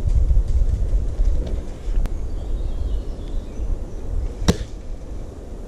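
A spring-powered airsoft sniper rifle (Classic Army SR-40 with an M160 spring) fires once, a sharp snap about four and a half seconds in. A low rumble on the microphone fades over the first seconds, and there is another sharp click near the end.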